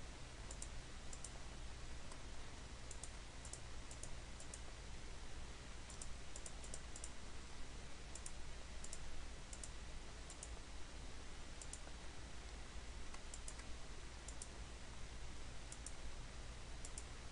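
Light, sharp computer mouse clicks, scattered irregularly and often in quick twos or threes, over a steady low hum and hiss.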